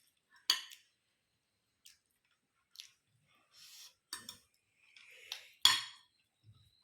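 Cutlery clinking against dishes a few times, the loudest near the end, with soft eating sounds between.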